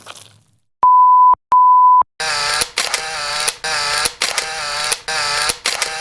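Two short, loud, steady one-pitch beeps like a censor bleep, followed from about two seconds in by a harsh buzzing sound effect that repeats in uneven bursts about twice a second.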